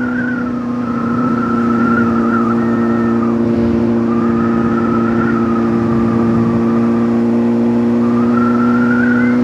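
Honda motorcycle engine running steadily at a constant cruising speed of about 40 mph, its note holding one even pitch.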